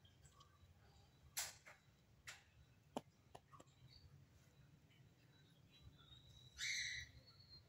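Small plastic toys clicking and tapping against each other as they are handled, a few separate light clicks over a low background hum, with a brief louder rustle near the end.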